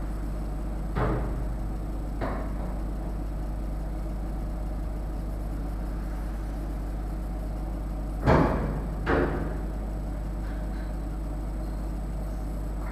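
A wooden-handled bristle brush sweeping aluminium chips off a CNC mill's vise and table, knocking against the metal four times: twice in the first couple of seconds and twice, louder, about eight and nine seconds in. A steady low machine hum runs underneath.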